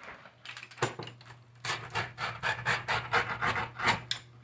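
A pizza cutter slicing through a crispy homemade pizza crust: a quick run of crackling crunches that starts about a second in and grows denser, over a faint steady hum.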